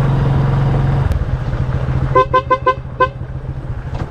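Small motorcycle engine running, easing off about a second in. From about two seconds in, the motorcycle's horn sounds in a quick string of four short beeps, then once more.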